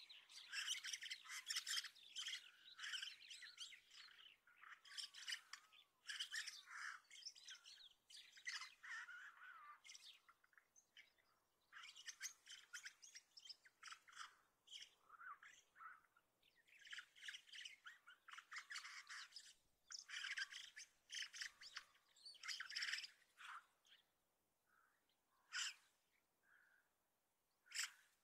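Common starling song and calls: a rapid jumble of clicks, whistles and harsh squawks in dense bursts with short gaps, thinning to a few single calls in the last few seconds.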